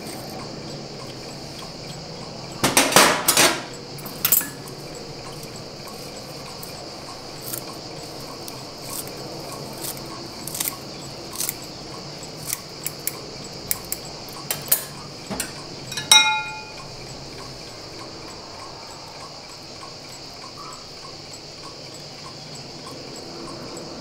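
Kitchen scissors snipping fresh herbs into a plastic bowl in a run of short sharp clicks, with a clatter about three seconds in and a ringing clink of metal about two-thirds through. A steady high insect drone runs underneath.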